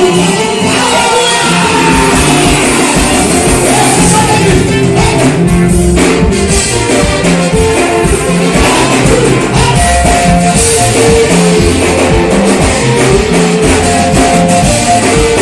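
Live worship band playing with guitar and drums, and voices singing over it.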